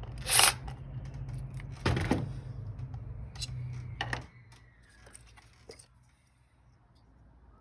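Mechanic's tools and engine ignition parts being handled: two short noisy bursts in the first two seconds, then scattered light metallic clicks and taps. A low hum under the start stops about four seconds in.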